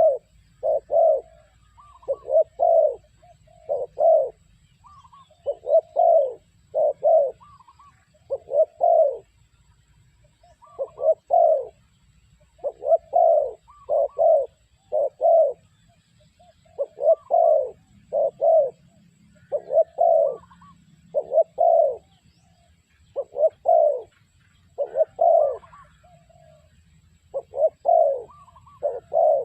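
Spotted dove cooing: short phrases of two or three loud coos, repeated every couple of seconds.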